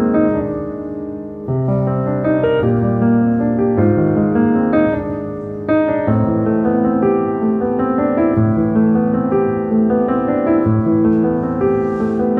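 Background instrumental music, a gentle piano melody with notes held and changing throughout.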